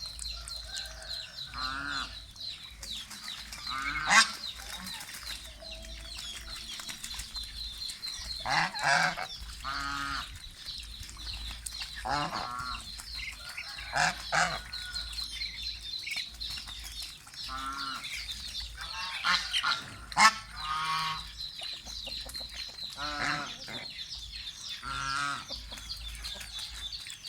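Domestic geese honking, separate calls every second or two, with two sharper, louder calls about four and twenty seconds in. A steady high-pitched chirring runs underneath.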